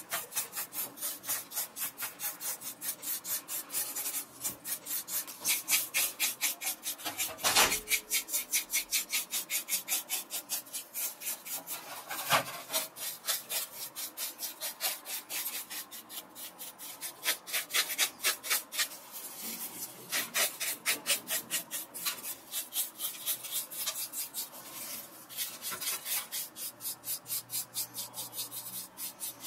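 Toothbrush bristles scrubbing the dirt-caked body of a Canon PowerShot A490 digital camera in fast back-and-forth strokes, a scratchy rasp about four strokes a second. A couple of louder knocks come in about a third of the way through.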